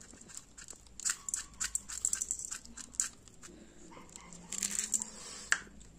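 Coarse sugar crystals spooned onto chopped coriander leaves in a ceramic bowl, making a scatter of small, sharp ticks, with a denser run shortly before the end and one sharp click.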